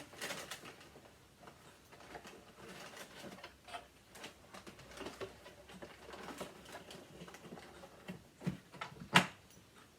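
Parts of a vintage Hoover vacuum being handled and fitted back in place: scattered light clicks, knocks and rustles, with one sharp click about nine seconds in.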